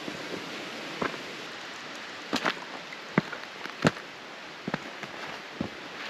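A hiker's footsteps on a rocky trail: irregular sharp steps and knocks, the loudest a little past the middle, over a steady hiss.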